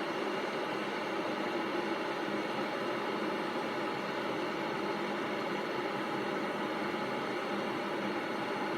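Electric kettle heating water: a steady, even rushing hiss with no breaks.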